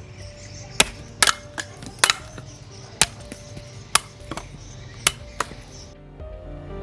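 A hand-forged knife chopping: about ten sharp strikes, roughly one a second with a few quick doubles, stopping near the end. Soft background music with held chords plays underneath.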